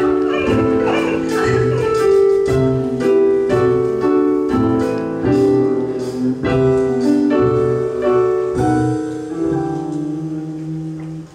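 Live band playing an instrumental passage led by piano chords, struck one after another under a second apart, ending on a held chord that fades and then stops.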